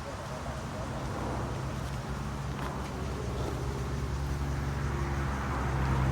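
An engine running with a steady low hum that grows gradually louder.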